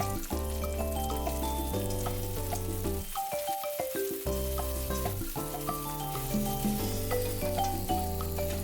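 Beaten egg mixture sizzling steadily in a hot frying pan as it cooks. A light melodic background tune plays over it.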